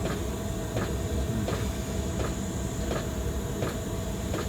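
Steady rushing of a butane soldering torch running with its hot-air blower attachment, with a diesel heater's sharp clicking about once every three-quarters of a second and its blowing behind it.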